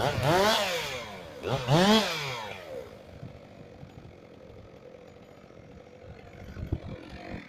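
Chainsaw engine revved up and back down twice in quick succession, the pitch rising and falling each time, then running more quietly.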